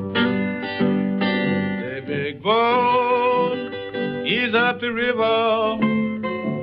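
Acoustic blues guitar music, with picked and strummed notes. From about two and a half seconds in come wavering, sliding notes.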